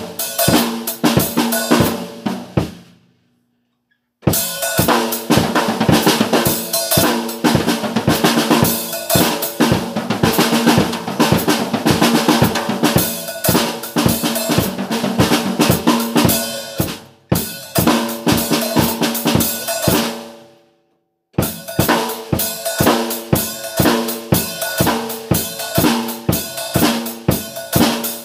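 Music driven by a full drum kit playing a steady beat over sustained pitched tones. It cuts out to silence twice: about three seconds in and again around twenty seconds in, each time for about a second.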